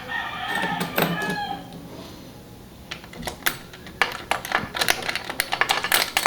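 Quick, irregular clicks and taps of small metal and plastic parts being handled: a CPU cooler's mounting bracket, screws and back plate being fitted to a motherboard. The clicking starts about three seconds in, after a short stretch of voice.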